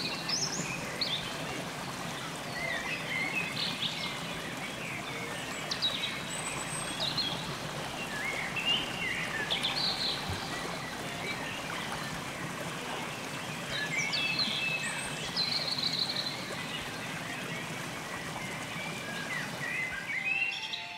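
Shallow river running over stones, a steady rush of water, with birds chirping in short calls above it.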